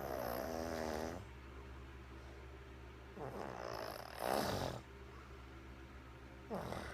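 A woman snoring through a nose congested by a cold: three snores, one at the start lasting about a second, a longer one in the middle that gets louder toward its end, and a short one near the end.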